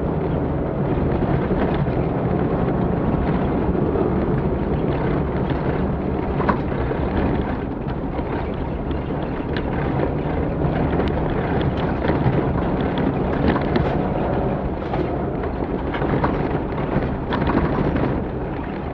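Offroad rally vehicle's engine running steadily under load on a rough track, with scattered knocks and rattles.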